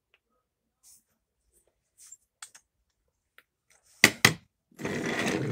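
A wooden Cub Scout pinewood derby car set down on a desk with two sharp knocks about four seconds in, then its plastic wheels rolling across the desktop for about a second. Before that, only a few faint handling clicks.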